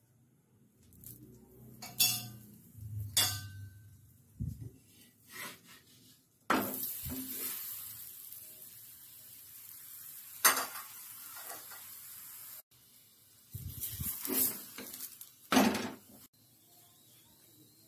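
A metal spoon clinks and scrapes on an iron tawa. About six seconds in, oil spread on the hot tawa starts sizzling; the sizzle fades and then cuts off suddenly. A few more sharp metal clinks and scrapes of a spatula on the tawa come near the end.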